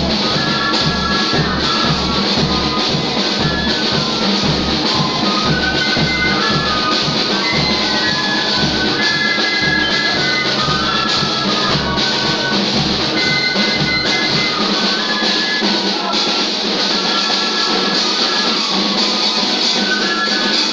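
Music with a steady beat and a melody line; the deep bass pulse, about two a second, drops out about two-thirds of the way through while the melody carries on.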